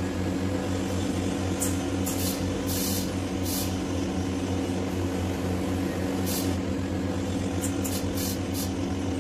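A steady machine hum with several short hisses scattered through it.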